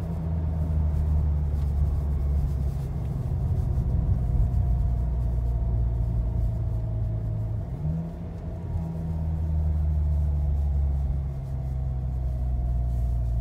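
Modified exhaust of a 2018 Volkswagen Golf SportWagen's turbocharged four-cylinder heard from inside the cabin: a low, steady drone at light load while the car slows at around 2,000 rpm. About eight seconds in, the drone breaks briefly and steps up a little in pitch as the transmission downshifts.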